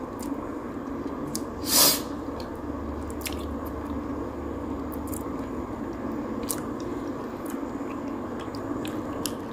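A person chewing wet food: giant freshwater prawn with curry instant noodles. There is one louder noisy burst about two seconds in and small clicks scattered throughout.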